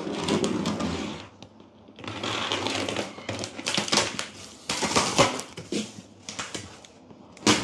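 Scissors slitting the packing tape along the top seam of a cardboard box, in several rough scraping stretches with cardboard rustling and a sharp click near the end.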